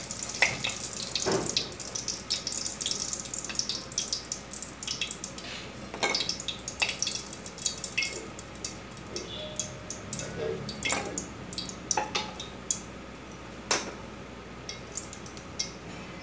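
Stuffed bitter gourds sizzling and crackling in hot oil in a metal wok as the fried pieces are lifted out, with a metal spatula clicking and scraping against the pan now and then. The sizzle is densest in the first few seconds and thins out later.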